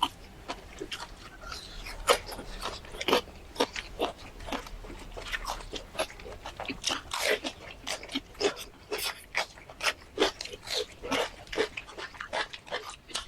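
Close-up eating sounds: chewing and crunching food in a quick run of short crunches and mouth smacks, several a second.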